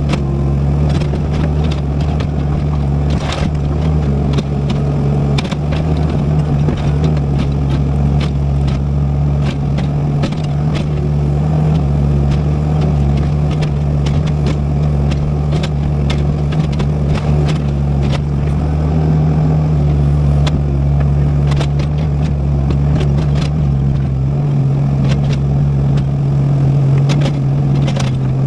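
Excavator's diesel engine running steadily while it digs, with scattered clicks and scrapes throughout; its low note shifts a few seconds before the end.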